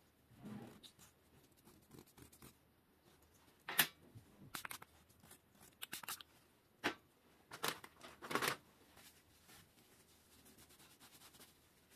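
Faint scattered clicks and short scrapes of small disc brake pads being handled and turned over in the fingers, with a soft thump about half a second in.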